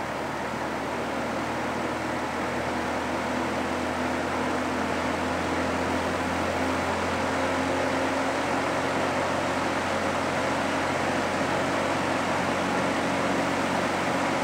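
Electric box fan (GE W-13) running with its blades reversed to exhaust: a steady rush of air over a motor hum, slowly growing louder.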